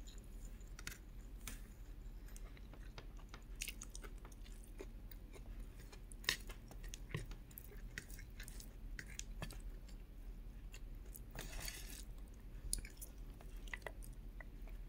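Close-miked chewing of rice and pork curry, with many small wet mouth clicks scattered throughout. There is a brief, louder noisy stretch about eleven and a half seconds in, over a steady low hum.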